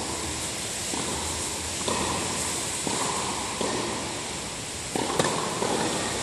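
Tennis ball struck back and forth by racquets in a doubles rally on an indoor court, a sharp hit about once a second echoing through the large hall.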